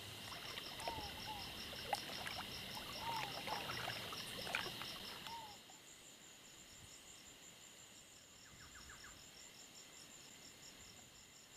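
Insects chirping in a steady fast pulse, with a few short bird chirps and light clicks in the first half. About halfway through the level drops and a higher-pitched insect pulse takes over.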